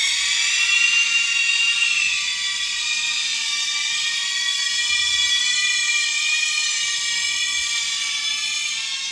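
A long, high-pitched scream of "ahhhhh", held on one pitch with a slight waver and easing off a little near the end.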